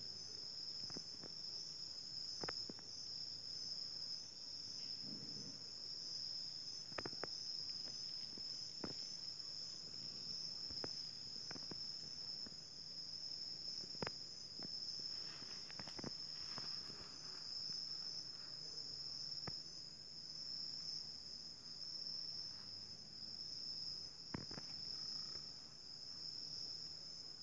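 A steady, high-pitched chorus of night insects, trilling with a fine pulse, with a few scattered faint clicks.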